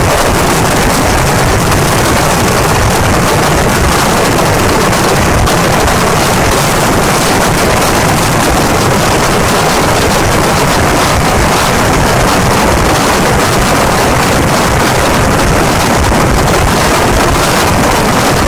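Dense, continuous barrage of firecrackers from a Kerala vedikettu fireworks display, the bangs running together into one loud, unbroken roar.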